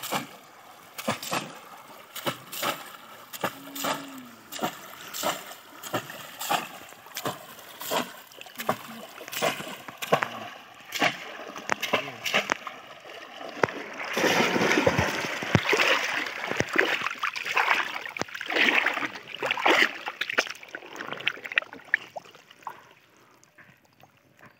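Bamboo cone fish traps slammed down into shallow muddy water over and over, a sharp splash about three times every two seconds. About halfway through, the splashes give way to a louder, continuous stretch of heavy splashing and sloshing, which dies down near the end.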